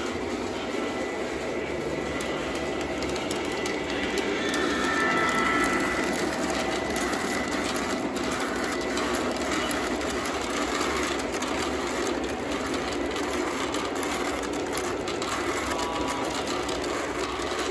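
Lionel O-gauge model trains running on three-rail tin-plate track: a steady mechanical whir and rattle of small electric motors and metal wheels, swelling a little as a freight train rolls close past about four seconds in.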